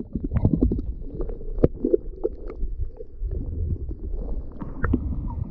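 Water heard through a submerged camera: a muffled low rumble and sloshing with scattered clicks and knocks.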